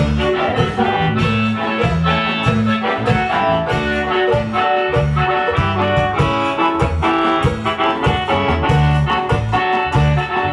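Loud dance music with brass and a heavy, pulsing bass line, played through a large PA speaker system.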